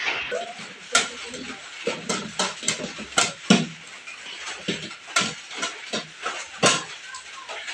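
Dishes clattering: ceramic plates and bowls knocking and clinking together as they are handled and stacked into a plastic dish rack, about a dozen sharp knocks at uneven intervals. A kitchen tap runs at first.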